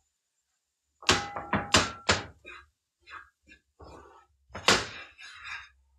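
Pots and pans being handled in a kitchen: about a second in, a quick run of metallic clanks with a short ring, then scattered thunks and knocks, one louder clunk later on.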